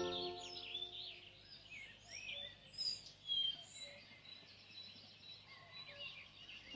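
Birds chirping: many short, high twittering calls, a couple of them louder a little past the middle. The last held notes of the music fade out in the first second.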